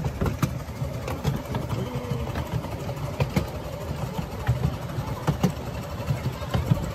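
Miniature railway passenger coach rolling along 7¼-inch gauge track: a steady low rumble from the wheels, with sharp clacks, often in quick pairs, as the wheels pass over rail joints.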